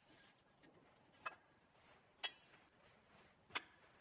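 Near silence: room tone with four faint, short taps about a second apart.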